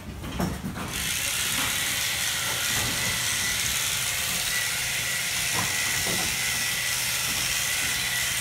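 A steady gas hiss starts about a second in and holds, with a low hum under it and a few faint knocks. It is typical of CO2 being blown into a sheep's abdomen for laparoscopic embryo transfer.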